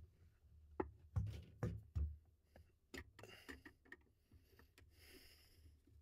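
Faint handling noise from thin wires being held and worked by hand: a few light clicks in the first three seconds, then a soft scratchy rustle.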